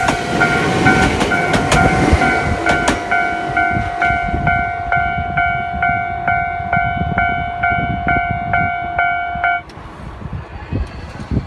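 Japanese level-crossing warning bell ringing in rapid, even strokes, then cutting off suddenly near the end as the crossing clears. Under it, during the first few seconds, a Nagano Electric Railway local train rolls through the crossing, its wheels clacking over the rail joints as it fades away.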